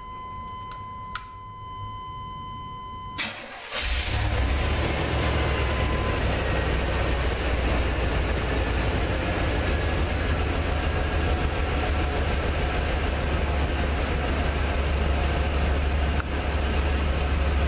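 A steady electronic warning tone sounds, then the 1994 Chevy G30 van's engine cranks briefly about three seconds in, catches and settles into a steady idle.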